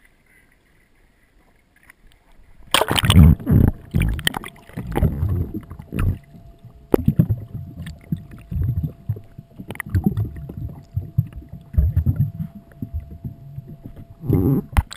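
Water rushing, sloshing and bubbling over an action camera's waterproof housing as it is plunged under the sea, muffled and irregular, starting about three seconds in. A faint steady whine holds underneath most of it.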